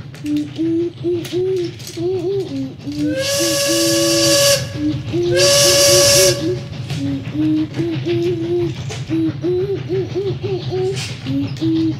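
Steam locomotive whistle sounding two long blasts about a second apart, each with loud hissing steam, over a simple background melody of short notes.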